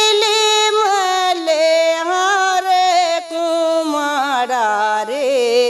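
A woman singing a Rana Tharu teej folk song solo and unaccompanied, drawing out long held notes. About four seconds in, her voice slides down and wavers through an ornament before the phrase ends.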